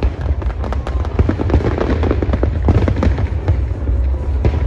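New Year's Eve fireworks display going off, a dense run of rapid cracks and bangs over a continuous low rumble of booms.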